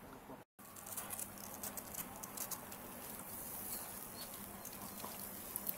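Water spattering from a cow-washing hose fed by a small half-horsepower electric pump, with many light ticks over a faint steady hum.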